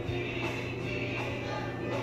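Gospel choir singing, with a male soloist leading the song.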